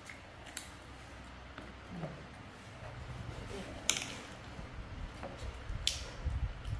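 Fruit being sliced with a knife and handled: sharp clicks as pieces are set into a plastic bowl, the loudest about four seconds in, over soft rustling and handling noise.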